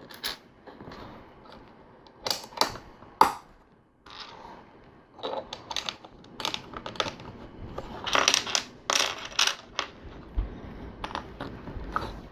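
Plastic LEGO pieces clicking and rattling as they are picked out, handled and pressed together: a few separate sharp clicks at first, then a busier run of clicks and rattling from about five seconds in.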